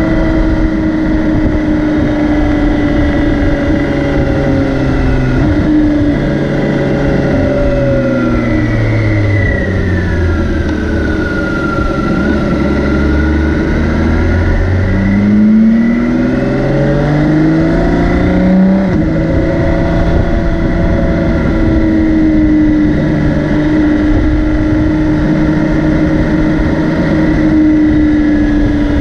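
BMW K 1600 B's inline-six engine running as the motorcycle is ridden: its note sinks slowly as it slows, then about halfway through climbs quickly in steps through a few gear changes before settling to a steady cruise.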